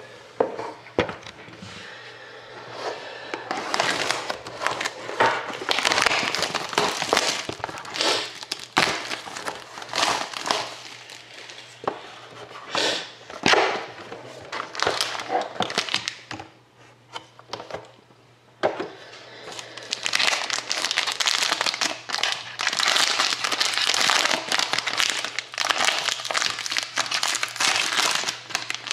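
Plastic wrapping crinkling and tearing as a sealed box of trading cards is unwrapped and opened, in long rustling stretches with scattered clicks and knocks of cardboard.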